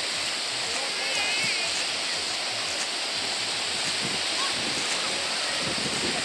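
Small waves breaking and washing up on a sandy shore, a steady rushing surf.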